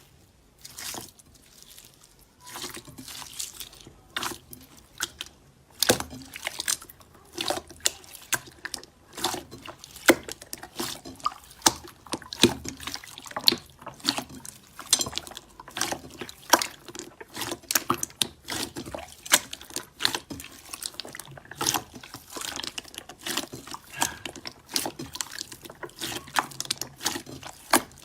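Slime being squished and worked by hand, giving many quick wet clicks and pops. They are sparse at first and come thick and irregular from about two and a half seconds in.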